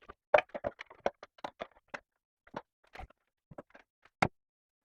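Irregular light clicks and taps, more than a dozen, closely spaced in the first two seconds and sparser after, with one sharper click about four seconds in.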